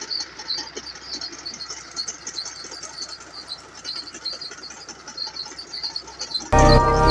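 Small birds chirping rapidly and without a break over faint outdoor rustle. Near the end, loud background music cuts in suddenly.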